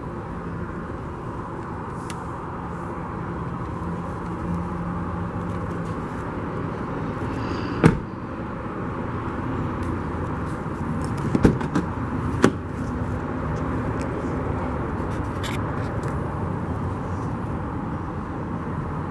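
Volvo XC60 door shut with a single sharp thump about eight seconds in, then a quick cluster of clicks and knocks a few seconds later as the handle is pulled and the front door latch opens, over steady background noise.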